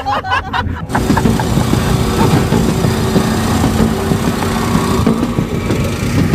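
Nissan minivan's engine idling close by, a steady low hum.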